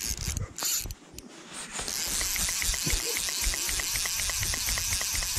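Fly reel's click-pawl ratchet ticking in a steady run, several clicks a second from about two seconds in, as line is wound in on a hooked fish. Wind hisses on the microphone, with a few handling knocks at the start.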